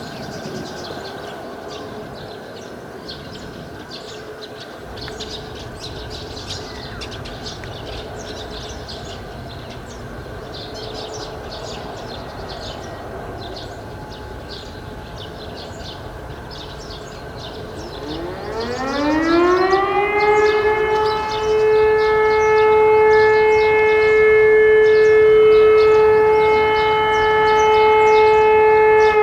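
Birds chirping over a faint steady tone. About two-thirds of the way in, a high-tone electric motor siren spins up on a routine siren test. Its pitch rises for about three seconds, then it holds one loud, steady tone.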